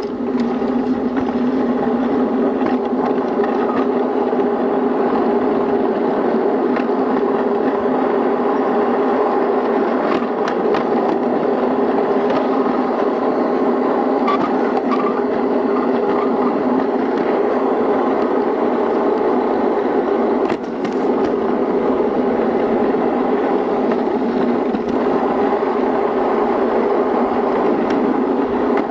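Playmobil toy train's small electric motor and gears whirring steadily as it runs along the track, with a few light clicks from the wheels on the rails; the whir dips briefly about two-thirds of the way through.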